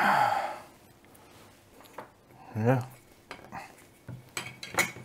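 Hard parts of a small air-horn compressor and its metal horn trumpet clinking and knocking as they are handled and fitted together, with a brief scrape at the start and several sharp clicks near the end.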